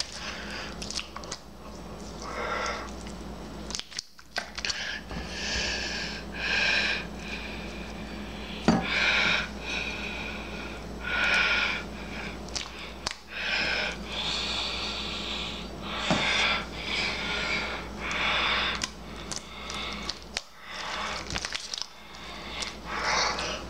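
Homemade slime being kneaded and stretched by hand, squelching and popping in short irregular wet, airy bursts, with scattered sharp clicks.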